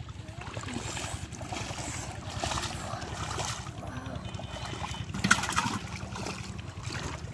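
Wind buffeting the microphone over splashing and sloshing of shallow muddy water as a fish is caught and handled by hand. A louder splash about five seconds in.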